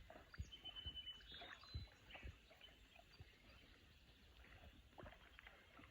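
Near silence: faint outdoor ambience with a few soft, scattered knocks and brief faint high chirps in the first couple of seconds.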